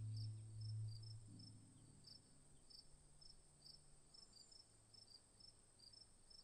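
Soft background music with low held tones fading out within the first two seconds, leaving faint insect chirping, a few high chirps a second, over a steady thin hiss.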